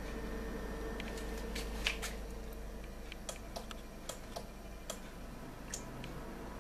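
Irregular light clicks and ticks, about a dozen, the sharpest about two seconds in, over a steady low electrical hum.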